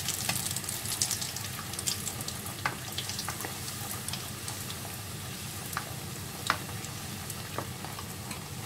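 Hot oil sizzling steadily around dough rounds frying in a pan, with many scattered sharp pops and crackles, as a metal spoon bastes the hot oil over the dough to make it puff up.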